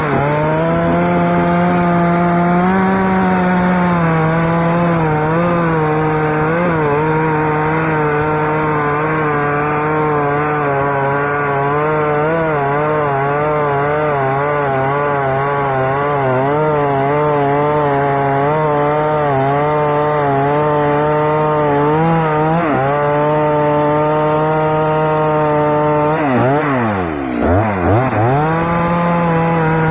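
STIHL MS 250 two-stroke chainsaw running at high speed while cutting acacia wood, its engine pitch wavering as the chain bites. Near the end it drops briefly to a low speed and revs back up.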